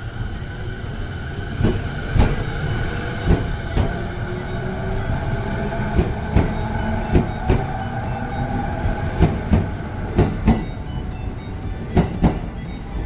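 Electric train running on the rails with a steady rumble, its wheels clacking over rail joints in close pairs every second or two. A faint whine rises slowly through the middle.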